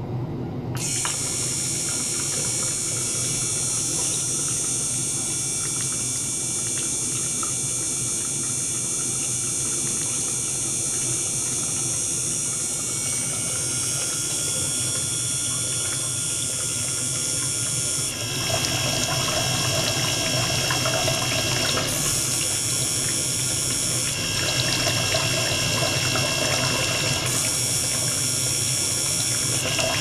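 A small circulation pump runs steadily while water streams from a tube into an acrylic tank and splashes. About a second in, several steady high-pitched tones start over it. About eighteen seconds in the tones change and begin switching back and forth every two to four seconds.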